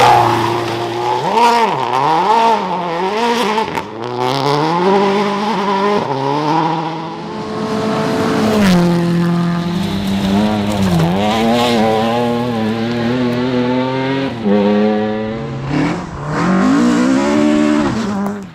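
Rally car engine revving hard on a stage. The revs climb and drop back over and over as it shifts gears and lifts through corners, with stretches where the revs waver rapidly up and down, and the sound cuts off abruptly at the end.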